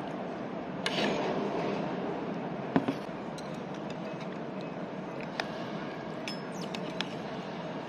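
Metal spoon and fork clinking against a plate and a small steel sauce cup while eating, a scattering of sharp clinks with the loudest about three seconds in. Steady background noise runs underneath.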